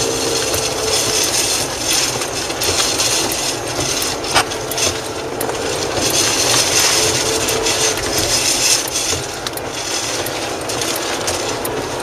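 Steady rushing noise of wind and tyres on a wet road, heard from inside a moving car, with scattered sharp ticks and knocks against the car and one more distinct knock about four seconds in.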